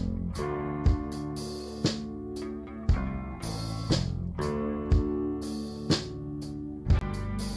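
Intro music: a band track with guitar chords held over a steady beat, a strong drum hit about once a second.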